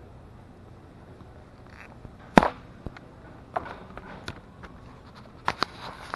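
A wire shopping cart loaded with bags knocking and rattling as it is handled and pushed: one loud knock about two seconds in, then scattered lighter clicks and knocks.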